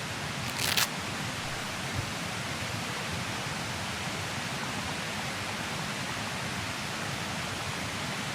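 Steady rushing hiss of flowing stream water, with a brief sharper hiss just under a second in.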